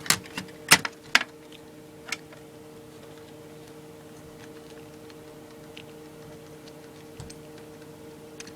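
Sharp plastic clicks and knocks of cables being plugged into a desktop computer's hard drive, about five in the first two seconds, then only a faint steady hum.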